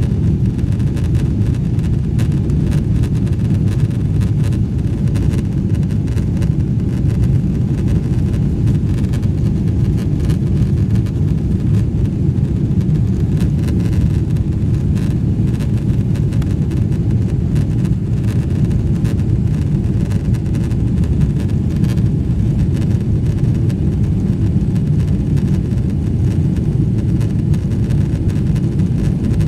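Steady, loud low rumble heard inside the cabin of a Boeing 777-300ER airliner, from its GE90 engines and the airframe.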